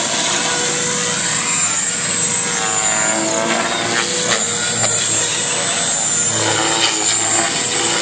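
Radio-controlled JR Forza 450 helicopter flying: a steady high whine from its rotor head and drive, with the pitch briefly sweeping about three seconds in as it manoeuvres.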